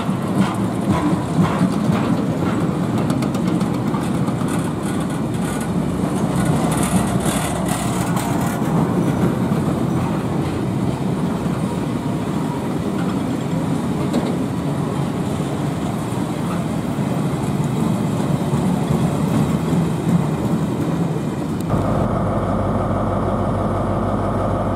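Freight train of hopper wagons rolling past: a steady rumble and rattle of wheels on rail, with quick clicks over rail joints in the first several seconds. About 22 seconds in it cuts to the steady hum of a Class 43 HST power car's diesel engine idling.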